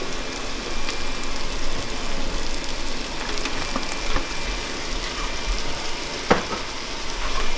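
Shrimp fried rice sizzling in a pan over a gas flame as sauce is poured in and stirred, with a single sharp knock about six seconds in.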